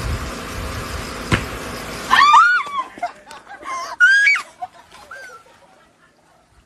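Two loud bursts of high-pitched screaming, about two and four seconds in, each cry bending up and down in pitch. Before them there is a steady hiss with one sharp click.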